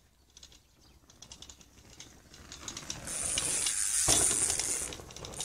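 A bicycle riding up over dirt. The freewheel hub ticks faster as it approaches, then the tyres hiss over the loose ground, with a thump about four seconds in as the rider comes down off the small jump.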